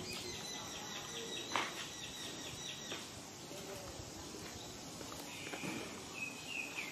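Rapid, high-pitched pulsed chirping from a small animal, about four chirps a second, for the first three seconds, with a sharp click about a second and a half in. Near the end come short high squeaks, the last one falling in pitch.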